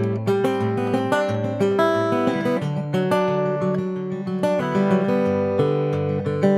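Acoustic guitar playing an instrumental break, picked notes of a melody over chords, with no singing.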